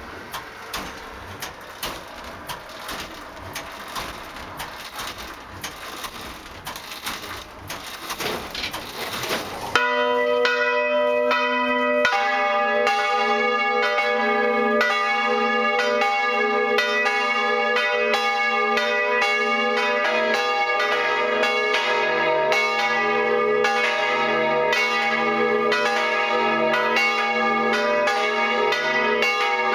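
Full peal of three swinging bronze church bells tuned D♯', G♯' and B', heard from inside the belfry. For about the first ten seconds there is only irregular knocking and rattling. Then the first bell starts to strike loudly, a second joins about two seconds later, and a lower-pitched third joins about halfway through, all three then ringing together.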